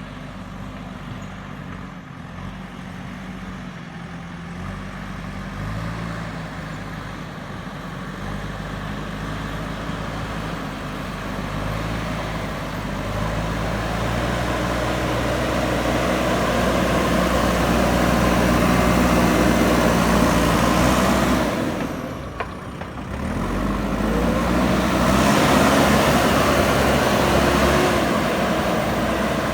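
Backhoe loader's diesel engine running, its note stepping up and down with the throttle and growing louder, with a brief drop in sound about two-thirds of the way through.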